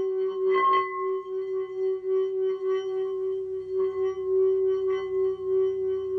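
Tibetan singing bowl made to sing by rubbing a wooden mallet around its rim: a steady, low ringing tone with higher overtones that pulses and wavers in loudness. There is one brief knock of the mallet on the rim about half a second in, and the tone rings on through it.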